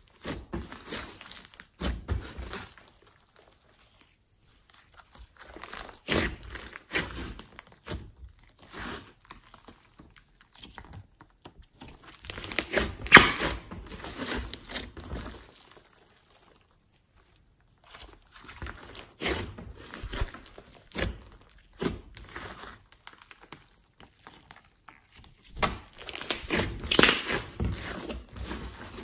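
Hands kneading, folding and stretching a large lump of glossy slime mixed with clay and glitter: sticky squishing and crackling in irregular bursts, with two short silent pauses.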